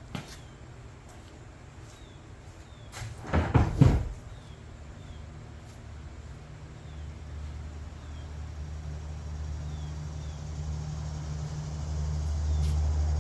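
A cluster of loud knocks and clatter from tools and parts being handled, then a low, steady mechanical hum that starts partway through and slowly grows louder.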